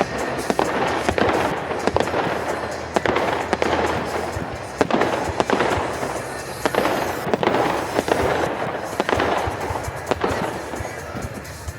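Fireworks going off: a dense run of sharp bangs and crackling that swells in bursts every second or two, with music playing underneath.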